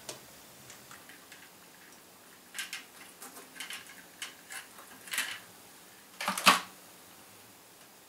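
Small clicks and scrapes of electrical wires and a plastic twist-on wire nut being handled and pulled off, scattered through the second half, with a louder scraping rustle just after six seconds in.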